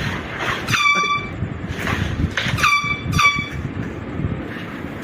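Air horn blasting three times: a first blast of about half a second about a second in, then two shorter blasts close together a little past the middle, each swooping up into a steady high tone.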